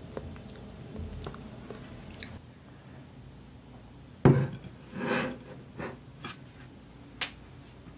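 Faint crackling as a browned meatball is pulled apart by hand, then a plate set down on a table with a loud knock about four seconds in, followed by a brief scrape and a few lighter knocks and clicks as it is adjusted.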